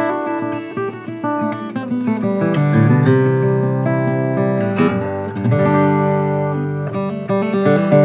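GWG Guitars Sitka spruce and mahogany 00-size acoustic guitar played solo. Chords are picked and strummed and left ringing, with firmer strummed chords about two and a half seconds in, near five seconds and near the end.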